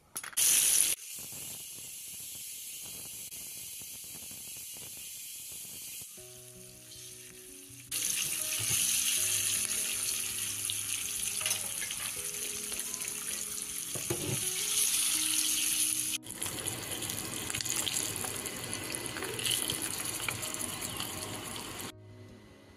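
Hot oil sizzling in a frying pan with fine crackles as masala spice powders, curry leaves and hard-boiled eggs fry, with a brief louder burst right at the start. The sizzle comes in a few cut-together stretches, louder from about eight seconds in, and gives way to soft background music near the end.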